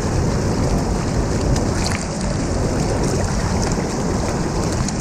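Fast mountain stream rushing and churning over stones, heard close up at the water's surface, with steady noise and small sharp splashes throughout.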